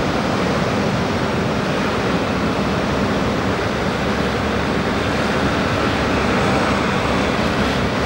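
Steady rushing of ocean surf and wind mixed with road traffic, with an approaching passenger train growing slightly louder toward the end.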